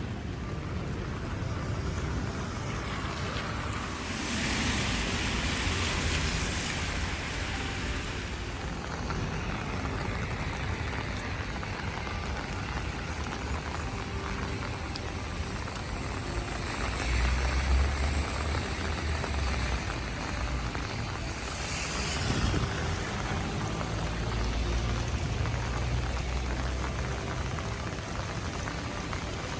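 Steady rain, with vehicles passing on a wet road: swells of tyre hiss a few seconds in and again about two-thirds through, and a low engine rumble in between.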